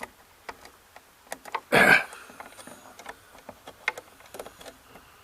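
Light, scattered clicks and taps of multimeter test probes being handled and pressed against breaker terminals in a breaker panel, with one loud, brief clatter about two seconds in.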